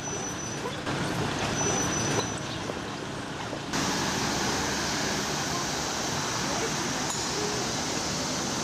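Busy street ambience: crowd chatter and passing traffic at a pedestrian crossing. About four seconds in it cuts to a steady hiss of heavy road traffic on a wide avenue.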